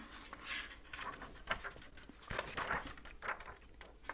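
Soft paper rustles and light taps from a hardcover diary being handled and its pages turned, a few short rustles about a second apart.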